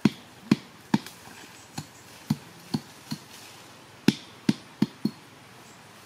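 A run of about eleven sharp knocks or taps, unevenly spaced, with a pause of about a second after the middle.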